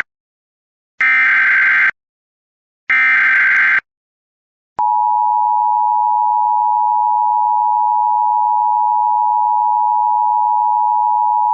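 Emergency Alert System tones. The SAME digital header ends with two short warbling data bursts, each just under a second. After a short pause, the steady two-tone EAS attention signal (853 and 960 Hz together) starts about five seconds in and holds. Together they announce a Local Area Emergency alert.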